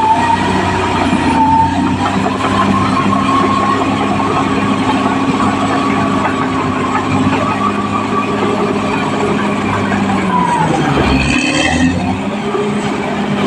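Caterpillar D6R XL bulldozer running under load, its diesel engine steady with a high whine above it. About ten and a half seconds in, the engine note sags and then picks back up.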